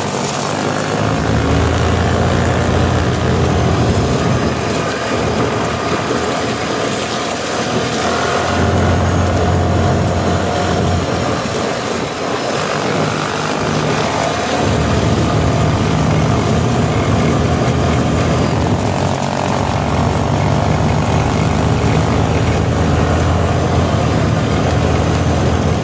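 Small off-road motorcycle engine running while riding over a gravel track, the engine note easing off and picking up again a few times.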